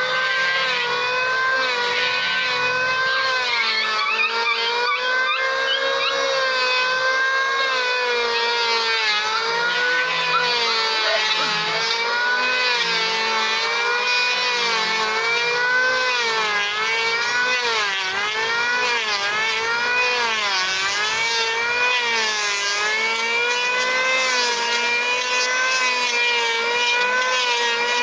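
Handheld electric power tool cutting along a timber plank, its motor whining steadily, the pitch dipping and recovering again and again as it bites into the wood.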